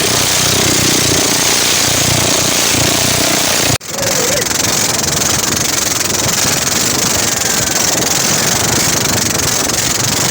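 Motorcycle engine running steadily and loudly under way, with a dense hiss over it; the sound cuts out abruptly for a moment about four seconds in, then carries on.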